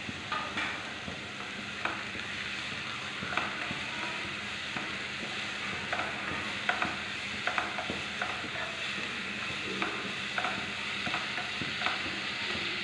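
Sliced onions sizzling in oil in a nonstick saucepan as they are sautéed to soften, stirred with a spoon that scrapes and taps irregularly against the pan.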